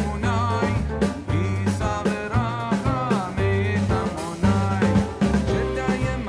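Background music with a steady drum beat and a bass line under a melody.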